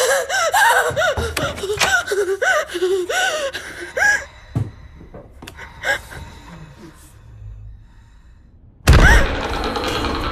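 A person gasping and whimpering in short cries that rise and fall in pitch for about four seconds. A few faint clicks follow in near quiet, then a sudden loud noise breaks in about nine seconds in.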